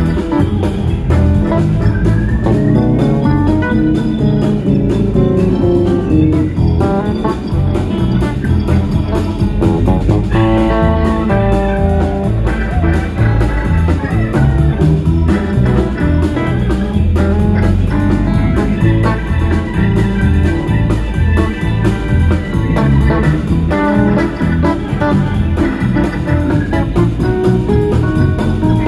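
Live rock band playing an instrumental passage: electric guitar, electric bass, drum kit and organ, loud and steady throughout.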